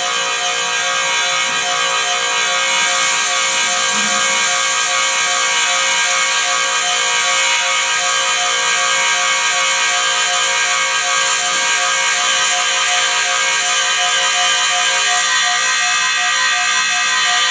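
Barnhart power head grinding the rim of a 5-foot band sawmill's top wheel as the wheel turns: a steady, loud, high-pitched whine made of several tones, over a hiss of grinding that gets louder about three seconds in.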